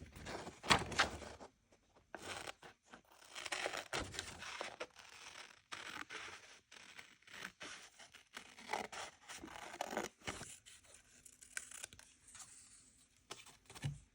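Paper and journaling supplies being handled at close range: irregular rustling strokes with a few sharp clicks. The sounds thin out in the last few seconds and end with a soft thump.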